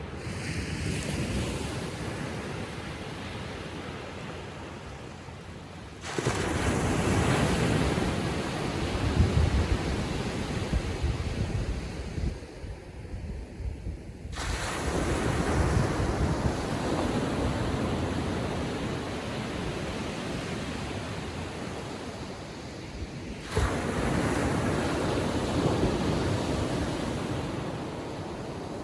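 Surf on a calm sea: three waves break about eight or nine seconds apart, each a sudden rush of water that washes out and fades slowly.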